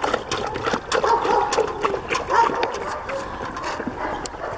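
Sled dogs lapping and splashing water from a metal bucket, a quick irregular run of wet clicks.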